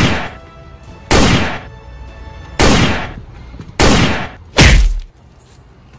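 Five gunshot sound effects fired for a toy blaster, each a sharp bang with a short fading tail. One comes right at the start, then about one every second and a half, and the last two come close together.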